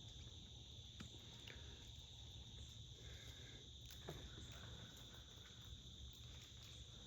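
Faint, steady high-pitched insect chorus, with a couple of soft clicks.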